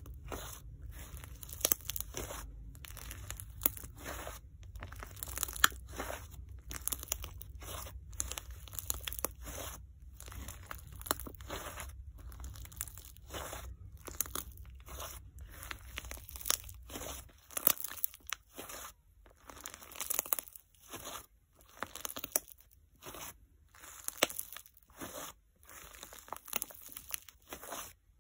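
Soft clay slime being kneaded and squeezed by hand, with rapid sharp crackles and pops of air trapped in the airy, foam-like dough. About halfway through the handling slows to separate presses, about one a second.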